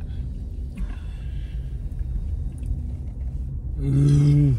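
A long, deep belch brought up by gulping carbonated Pepsi, coming near the end and dropping slightly in pitch as it stops, over a low steady rumble.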